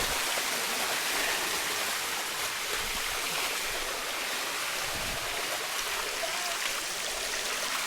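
Water rushing steadily down the cascade of the Bua Tong (Sticky) Waterfall, an even, unbroken noise.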